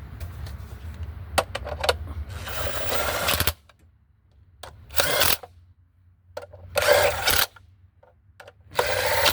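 Engine-cover bolts being run back in with a tool: a longer burst of mechanical clicking and rattling, then three short bursts about two seconds apart.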